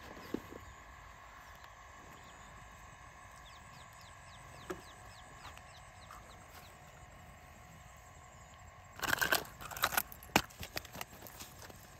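Faint outdoor ambience with a few short high chirps, then about two seconds of loud rustling and knocking around nine seconds in.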